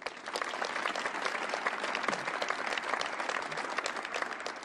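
Audience applauding, a dense patter of many people clapping that starts at once as the next speaker is welcomed to the stage.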